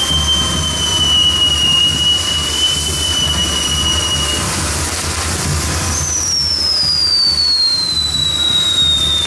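Castillo firework wheel burning, hissing steadily with a low rumble, while a shrill firework whistle holds and sinks slightly in pitch, stopping about four seconds in. A second whistle starts higher about six seconds in and glides slowly down.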